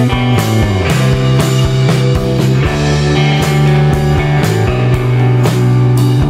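Background rock music: electric guitar and bass over a steady drum beat of about two hits a second.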